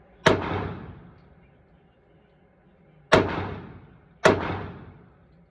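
Three pistol shots from a semi-automatic handgun: one, then a pause of nearly three seconds, then two more about a second apart. Each sharp crack is followed by about a second of reverberation off the range walls.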